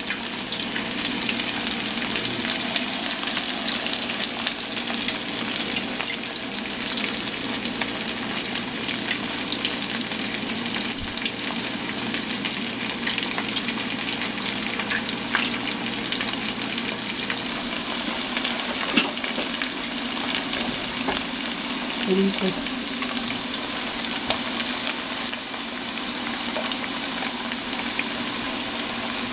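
Thin slices of green plantain frying in hot oil in a stainless steel pan: a steady sizzle with a few sharp crackles scattered through it.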